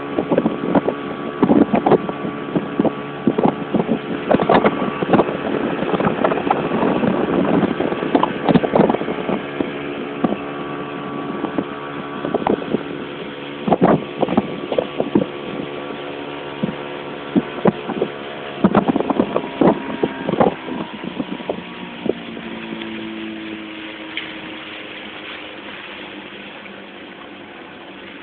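Motorboat engine running steadily, with many sharp irregular knocks and slaps over the first twenty seconds or so. After that the engine runs on more quietly and evenly.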